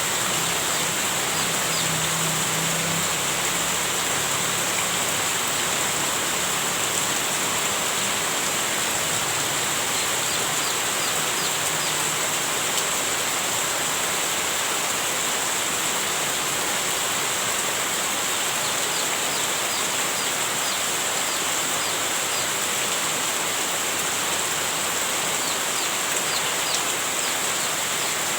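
Heavy rain falling steadily, an even hiss that does not let up, with a few faint short high chirps now and then.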